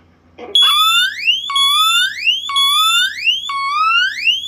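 Teledyne WaterPik Sonic Siren D-2 ionization smoke alarm sounding its electronic varying-frequency siren on test, starting about half a second in: a rising sweep that drops back and repeats about once a second.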